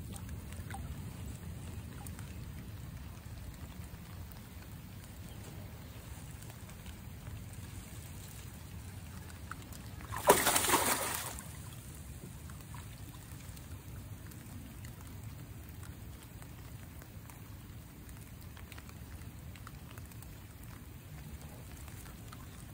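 A hooked largemouth bass splashing at the surface beside the boat, one short, sharp burst about ten seconds in. Water sloshes quietly against a low, steady rumble the rest of the time.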